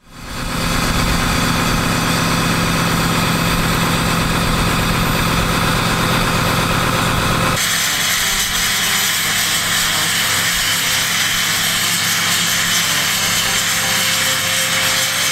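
Diesel pickup exhaust running steadily at idle, cold-weather exhaust vapour pouring from the tailpipe. The sound fades in at the start and turns abruptly brighter and hissier about halfway through.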